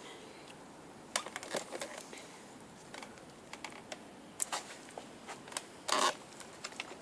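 Sparse light clicks and taps of parts being handled while the old motor is worked loose from a Numatic vacuum cleaner, with a louder clatter about six seconds in.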